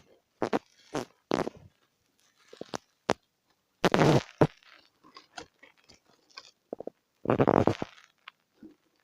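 Irregular handling noises: a string of short sharp knocks and rustles, with two longer noisy bursts about four and seven seconds in.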